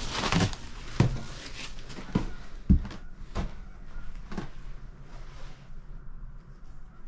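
A noisy scrape or rustle, then a series of knocks and thuds, roughly one a second for about four seconds, that trail off toward the end.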